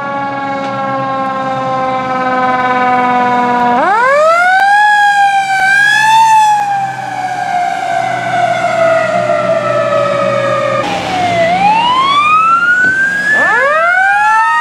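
Fire engine siren winding down slowly in pitch, revved back up sharply about four seconds in, then coasting down again over several seconds. After a cut, a second fire engine's siren wails in overlapping rising and falling sweeps.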